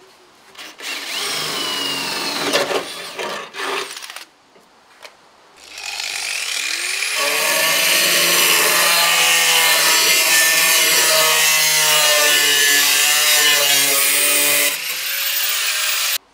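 A cordless drill bores through a steel plate in several short bursts over about three seconds. About six seconds in, an angle grinder spins up and grinds the steel steadily for about eight seconds before stopping.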